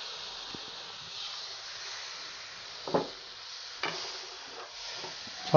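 Chopped tomatoes sizzling in hot ghee with fried onion and spices in a nonstick pan, a steady hiss. A spatula stirring the pan knocks a few times.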